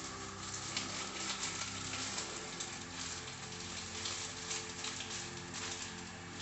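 Water heating in a steel pot on a gas stove, hissing and crackling with many small ticks as it nears the boil, over a steady low hum.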